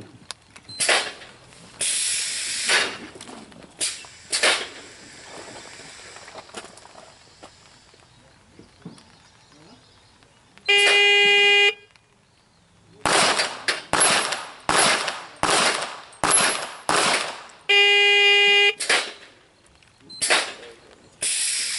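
An electronic shot-timer beep of about a second starts a string. A rapid series of pistol shots at a steel plate rack follows, about two shots a second for some four seconds, and then a second identical beep. Two more shots come near the end, and there are scattered louder noises in the first few seconds.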